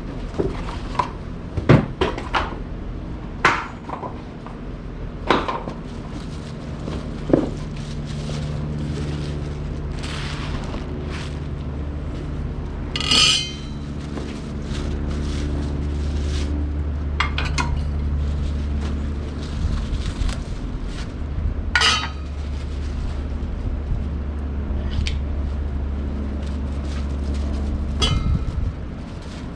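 Metal parts of a charcoal pizza oven clinking and knocking as they are handled and unpacked, with a handful of sharp clanks over a steady low hum.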